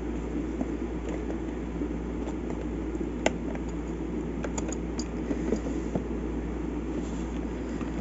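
Steady low background hum with a few light clicks and taps, the sharpest about three seconds in and a small cluster a little later.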